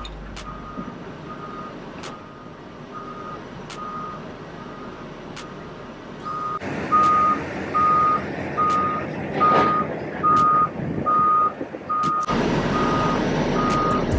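Backup alarm beeping steadily at one pitch, about two beeps a second, over a running diesel engine. The engine noise grows louder from about halfway through and drops back near the end.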